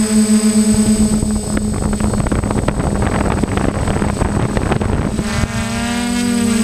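Hexacopter drone's electric motors and propellers whining steadily, heard from the drone's own camera microphone. Wind buffets the microphone through the middle, and the motor pitch shifts slightly near the end.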